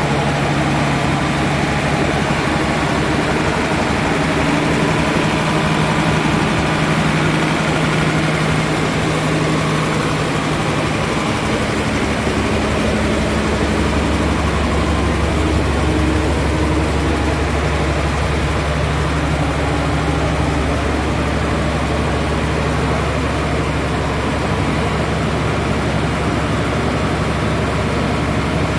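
Isuzu 6HH1 inline-six diesel engine running steadily on a test run, driving a screw vacuum pump; the low rumble grows stronger about twelve seconds in.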